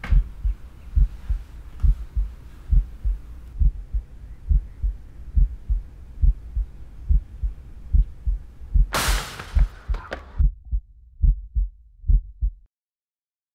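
Heartbeat sound effect: steady paired low thumps, a lub-dub a little under once a second. About nine seconds in a loud rushing hiss rises over it for about a second, and the heartbeat stops suddenly near the end.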